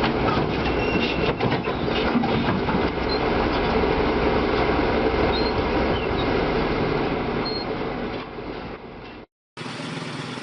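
Heavy vehicle running with a loud, dense rumble and clatter that fades near the end and cuts off abruptly. After a brief silence a quieter, steady vehicle sound begins.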